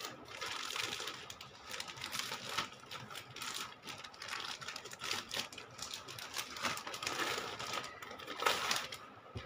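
Clear plastic clothing packaging rustling and crinkling in rapid, irregular crackles as the packet is handled and opened.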